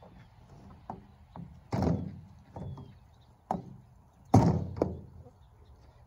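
Wheelbarrow being knocked and shaken on its side to empty out a load of cow manure, then set back down: a string of knocks and thumps, the two loudest about two and four and a half seconds in, each with a short rattle.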